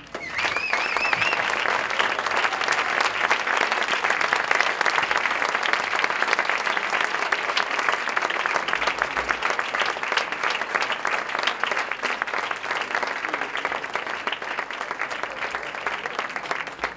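Audience applauding steadily, a dense spread of clapping that eases a little near the end. A short, high, wavering tone sounds over the clapping in the first second or so.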